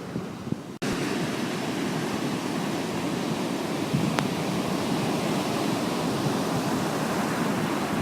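Strong wind buffeting the microphone over the steady wash of sea surf, cut by a brief gap just under a second in.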